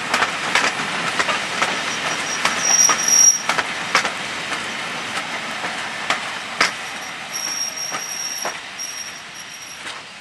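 Railway coaches rolling past, their wheels clicking over rail joints in a steady repeating rhythm, with a thin high-pitched wheel squeal about three seconds in and again from about seven seconds. The sound fades as the last coach goes by.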